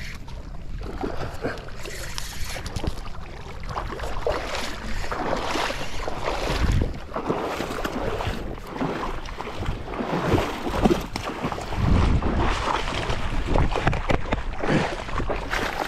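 Wind noise on the microphone with irregular splashing in shallow water. Near the end a hooked barramundi thrashes at the water's edge as it is being landed.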